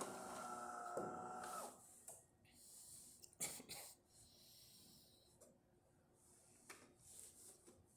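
DeLonghi Eletta espresso machine running with a steady hum that stops about two seconds in, at the end of a coffee cycle. A few faint clicks and knocks follow, the loudest about halfway through.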